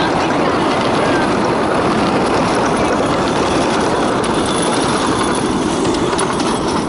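Ride-on miniature railway train with a gasoline-hydraulic engine running past, a loud steady mechanical noise with no clear pitch.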